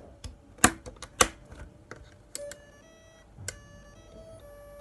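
A few sharp plastic clicks of parts being handled, then a faint electronic tune of thin beeping tones that step from note to note every fraction of a second.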